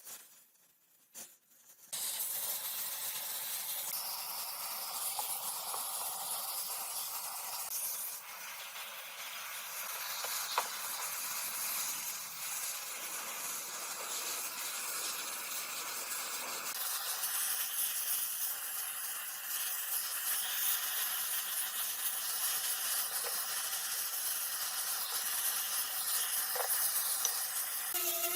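Steady hiss of a compressed-air spray nozzle, starting about two seconds in and running on with small shifts in tone.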